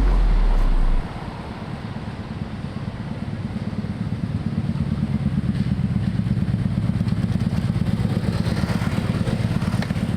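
A motor engine running with a low, rapidly pulsing rumble that grows louder over the first few seconds and then holds steady, after a deep boom right at the start.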